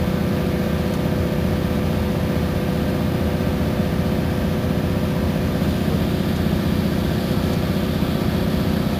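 Iveco Crossway bus's diesel engine running steadily while the bus is under way, with a constant hum and a steady tone above it.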